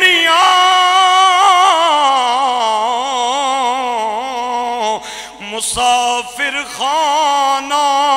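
A man's voice singing a slow, drawn-out line of Punjabi Sufi verse on long held notes that waver with vibrato and slide between pitches. The voice breaks off briefly about five seconds in, then picks up again.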